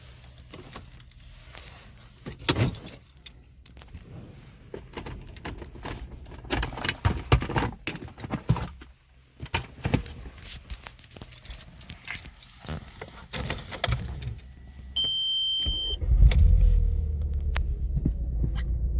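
Scattered clicks and rattles, then a single beep about a second long. About three-quarters of the way in, the VW Golf Mk4 GTI's 1.8T four-cylinder engine starts and runs with a steady low rumble; the engine has a severe ignition misfire that was later traced to a failed ignition amplifier.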